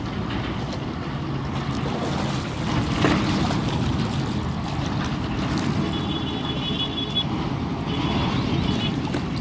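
Steady outdoor rumble, mostly low, with no clear single source, and a faint high chirping twice in the second half.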